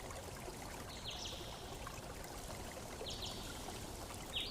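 Faint, steady water-like hiss of background ambience, with three short, high, falling chirps, the last drawn out into a brief steady whistle near the end.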